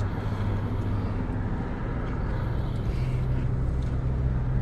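Idling car engine heard from inside the cabin: a steady low hum over an even rush of noise, its pitch stepping up slightly about three seconds in.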